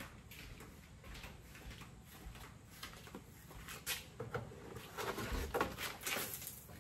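Faint handling noise: scattered light knocks and rustles, busier over the last few seconds as a rubber floor mat is pulled out of a pickup's driver-side footwell.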